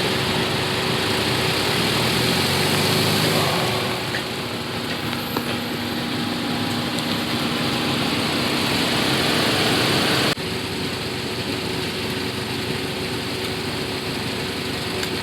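BMW 428i running with steady engine and road noise, with no clunk heard, the car being tried after its loose front panel was tightened. The sound drops abruptly in level about ten seconds in.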